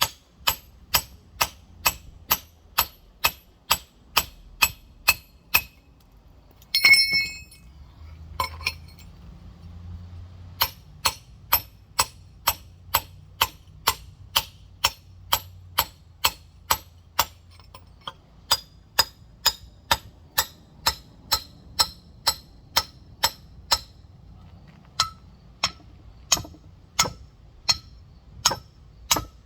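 Rock hammer tapping steadily on a large geode, about two sharp, lightly ringing strikes a second, chipping around the stone to crack it open without breaking it into pieces. There is one louder knock about seven seconds in and a short pause after it before the tapping resumes.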